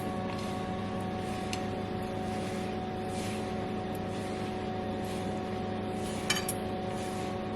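Steady machine hum made of several fixed tones, unchanging throughout, with one faint tap about six seconds in.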